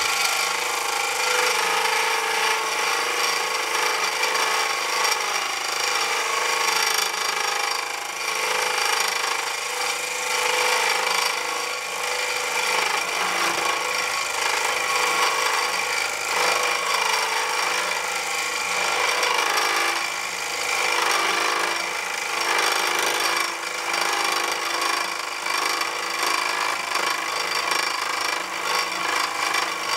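Wood lathe running steadily with its motor's tones, while a skew chisel takes continuous final shaping cuts on a spinning wooden pen blank, with a steady scraping hiss of shavings.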